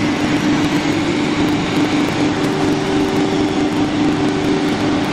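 Wood CNC router running with a loud, steady machine hum and noise; a second, higher steady tone joins about halfway through.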